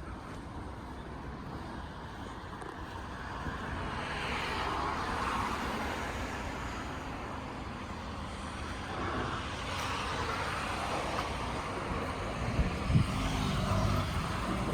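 Road traffic: steady noise with cars passing, swelling twice, and a few low thumps near the end.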